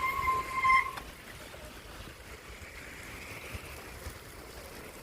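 Steady rushing noise of wind and movement while cycling on a snowy road. A steady high-pitched squeal sounds at the start and cuts off about a second in.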